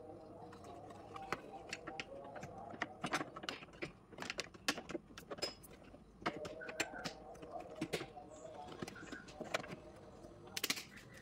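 Irregular sharp metallic clicks and clinks of hand tools and small metal fittings being handled during installation work on a motorcycle.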